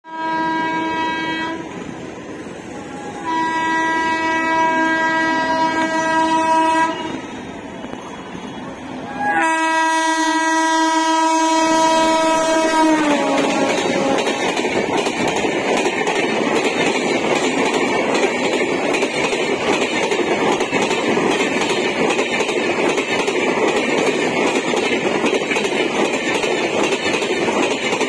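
A train horn on an Indian Railways passenger train sounds three times: a short blast, then two long ones, the last sliding down in pitch at its end. The coaches then run past with a steady roar and clickety-clack of the wheels.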